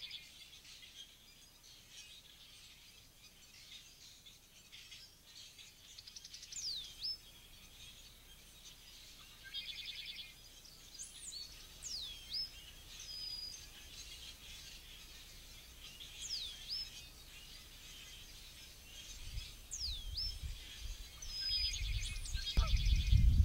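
Songbirds calling in a marsh at dawn: sharp, high whistled notes that swoop down and up again, repeated every few seconds, with short buzzy trills. Near the end a low rumbling noise builds up and grows loud.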